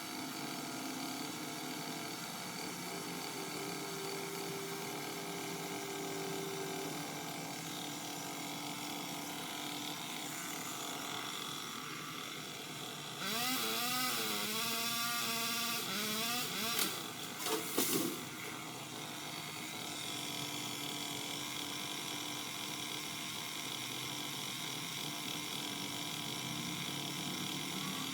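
Power limb cutter's motor running for about three seconds, its pitch wavering up and down as it works through a limb. A few sharp cracks follow, over a steady background hum.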